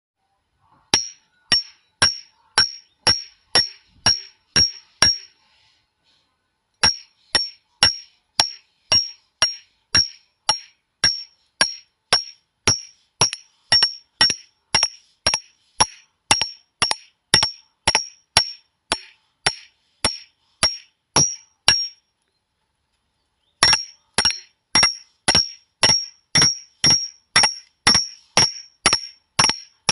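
Glass breaking sound effect: one short, sharp glass crack with a bright ring, repeated about twice a second in three runs, with brief pauses near six seconds and about twenty-two seconds in.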